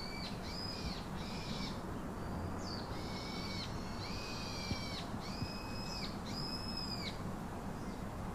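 A bird calling repeatedly outdoors: a series of short, clear whistled notes, each rising and falling, over a steady low background hiss.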